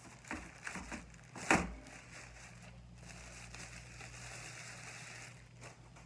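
White plastic packaging sleeve being pulled off a mechanical keyboard, crinkling and rustling in ragged bursts, with one sharp, loud crackle about a second and a half in, then a quieter rustle.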